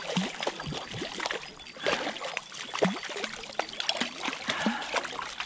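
Water splashing and trickling in quick, irregular spatters, as from a freshly caught rainbow trout flapping in the water.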